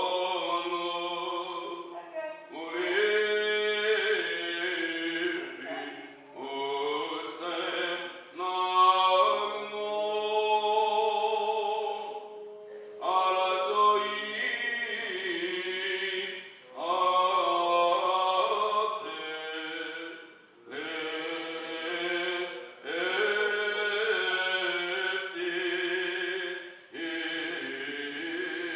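Byzantine chant of the Greek Orthodox funeral service: a chanter sings long, ornamented phrases with held, wavering notes, broken by short pauses between phrases.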